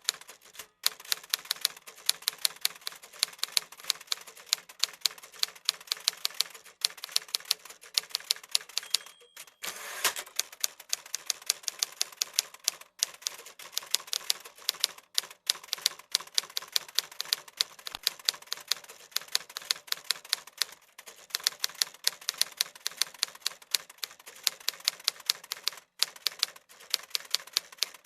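Typewriter keys striking in fast, steady runs of sharp clacks, with short pauses between runs. About nine seconds in, a brief ring is followed by a longer sliding rush.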